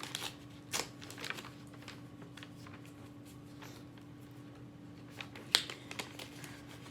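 Small slips of paper being folded and handled: light, irregular rustling and crinkling, busiest in the first second or so, with a single sharp click about five and a half seconds in.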